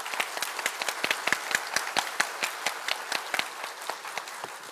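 Audience applauding, a dense crowd of hand claps that fades slightly toward the end.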